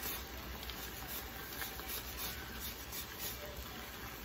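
A lemon being zested on a fine rasp grater: light, irregular scraping strokes, over a steady low hum.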